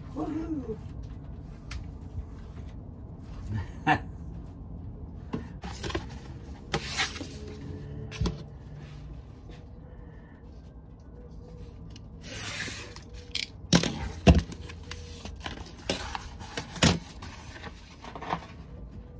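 Scattered sharp knocks and clicks from work on the cabinets, with a few short rustles, one lasting about a second, over a steady low hum.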